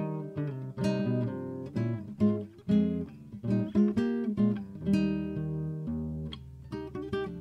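Background music: an acoustic guitar strumming chords and picking notes in a steady rhythm.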